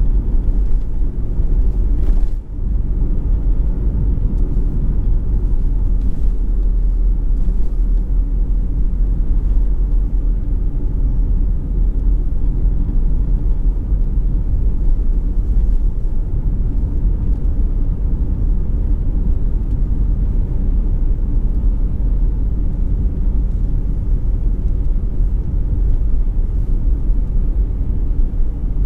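Steady low rumble of a moving car heard from inside the cabin: tyre and engine noise at cruising speed. A brief dip with a faint click comes about two and a half seconds in.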